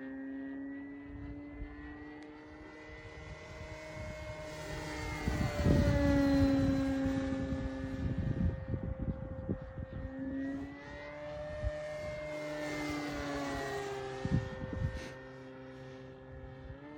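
Electric radio-controlled model plane, a Carbon-Z Cessna 150, in flight: the steady whine of its brushless motor and propeller, its pitch drifting slowly up and down as the plane passes, loudest about six seconds in. Low rumbling noise comes and goes under it.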